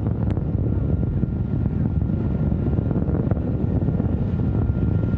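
Antares rocket's first stage, two RD-181 engines at full thrust, heard as a steady low rumbling noise during ascent.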